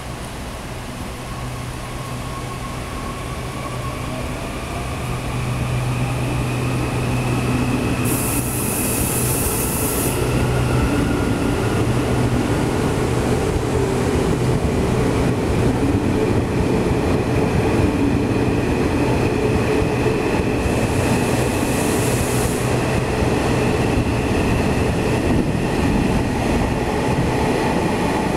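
KTM ETS electric express train pulling out along the platform: a steady motor hum with whining tones that climb slowly in pitch as it gathers speed, growing louder over the first few seconds. Two short bursts of high hiss come about 8 and 21 seconds in.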